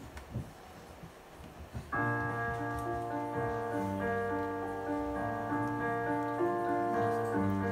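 Piano starting to play about two seconds in: held chords over low bass notes, after a quiet stretch with a few faint clicks.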